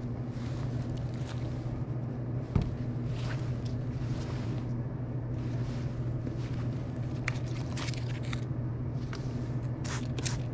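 Cleaning solution being worked into an aircraft multi-pin connector: brief, irregular hissing and scratching noises and a single click about two and a half seconds in, over a steady low hum.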